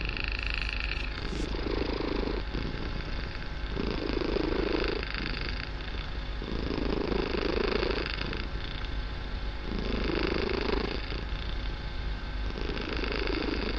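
Kitten purring very loudly, the purr swelling with each breath, about once every three seconds.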